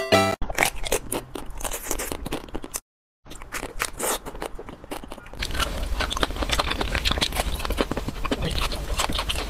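Eating sounds of ice cream bars with a hard chocolate coating being bitten and chewed, as in an eating ASMR: a dense run of crisp crackles and crunches, broken by a short silence about three seconds in.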